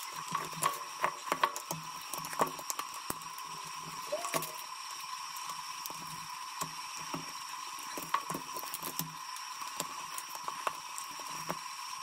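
Small irregular clicks and scratches of a screwdriver tip and fingers scraping and peeling decals off the plastic housing of a Tesla Mobile Connector, over a faint steady high-pitched whine.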